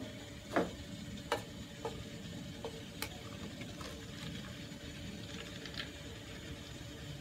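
A few light clinks of a metal spoon against the plate of steamed fish as it is tilted to drain off the fishy cooking liquid, the clearest two in the first second and a half, then fainter ticks, over a faint steady background noise.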